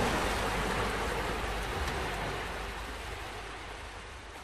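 Surf washing on a beach, an even hiss of breaking waves that fades out steadily.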